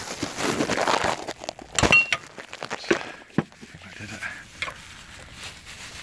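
Metal-on-metal knocks and scraping as a front brake caliper is worked loose and pulled off the disc. The loudest is a sharp ringing clink about two seconds in, followed by a few lighter knocks.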